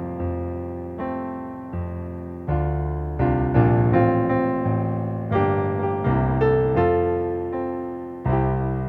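Slow solo piano music: sustained chords struck and left to fade, changing about once a second.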